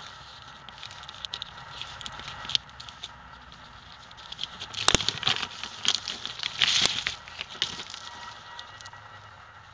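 Plastic bag and wrapping crinkling and rustling as a knife is handled and pulled out of its packaging, with a louder, denser run of crackles from about five to seven and a half seconds in.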